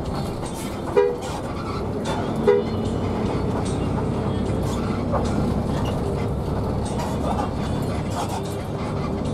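Two short honks of a two-note vehicle horn, about a second and a half apart, over the steady engine and road noise of a bus cabin on the move.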